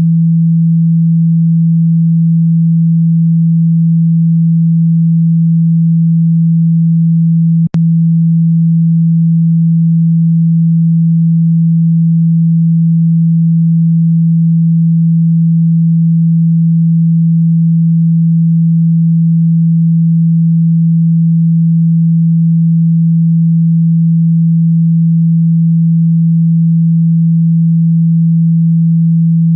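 A single low, steady pure tone from a speaker-cleaning track, played loud to vibrate water and dust out of a phone speaker. About eight seconds in it cuts out for an instant with a click, then carries on unchanged.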